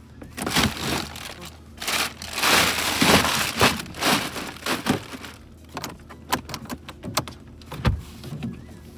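Plastic bags of ice crinkling and rustling as a salmon is packed into a boat's cooler, with scattered knocks, then a heavy thump about eight seconds in as the cooler lid shuts.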